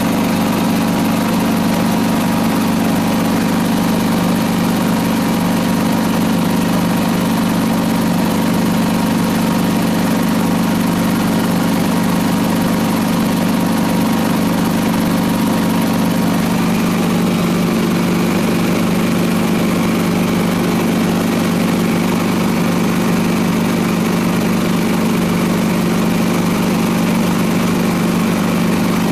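Helicopter's engine and rotor running steadily in flight, heard from inside the cabin as a constant drone. The tone shifts slightly about halfway through.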